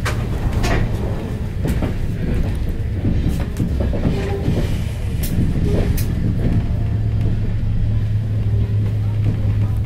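Railway passenger carriage running along the track, heard from inside: a steady low rumble with irregular sharp clicks as the wheels pass over rail joints and points. A steady low hum comes in about two-thirds of the way through.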